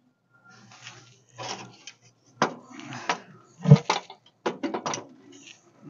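Steel tube exhaust headers (Mustang headers) knocking and scraping against the pickup's frame and underbody as they are wiggled up into place by hand: an irregular run of metal clanks and scrapes starting about half a second in, the loudest a heavier thump a little past the middle.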